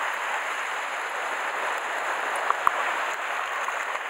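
Sea water washing and fizzing over shore rocks, a steady hiss of surf, with two short sharp clicks about two and a half seconds in.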